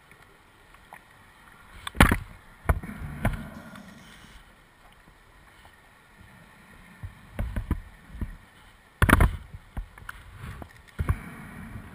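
A scuba diver breathing through a regulator, heard underwater through the camera housing. Bursts of exhaled bubbles come about 2 s in, again around 7 to 9 s (the loudest), and near the end, with quieter stretches between.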